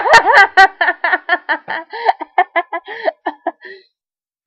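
Young girls laughing hard: a loud burst of laughter, then a long run of quick, high-pitched 'ha' pulses that grows fainter toward the end.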